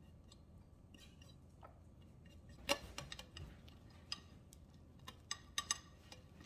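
Faint, irregular light clicks and taps of hands rolling a spring roll wrapper on a ceramic plate, with a sharper tap between two and three seconds in and a small cluster of clicks near the end.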